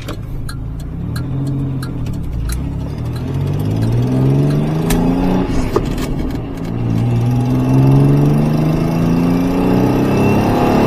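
1987 Pontiac Fiero GT's 2.8-litre V6 heard from inside the cabin, accelerating through the gears. Its pitch rises steadily, drops at a gear change about six seconds in, then rises again. A light ticking, about twice a second, runs through the first few seconds.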